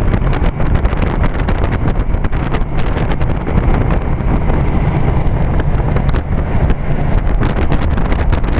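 Circa-1973 General Electric central air-conditioner condensing unit running steadily: mostly condenser-fan noise and air buffeting, with the shakes and rattles of an old unit, while the reciprocating compressor stays quiet underneath.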